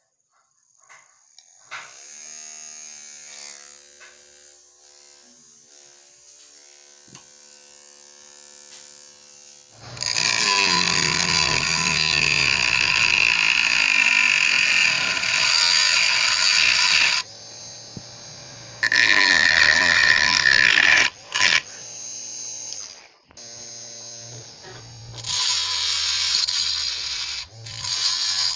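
Homemade mini drill's small 555 DC motor running. A faint, steady whine comes first, then three loud noisy stretches of a few seconds each, the first the longest.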